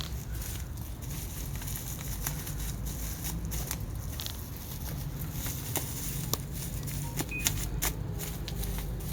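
Plastic bubble wrap rustling and crinkling as it is handled and wrapped around a small object, with scattered small clicks.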